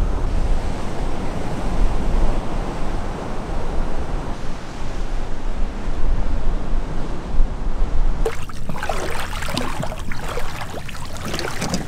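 Ocean surf breaking on a beach, a steady wash of waves with wind rumbling on the microphone. About eight seconds in it changes abruptly to splashing in shallow water.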